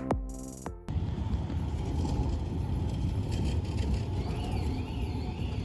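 Background keyboard music ending about a second in, followed by a steady low rumble with a faint wavering high tone in the second half.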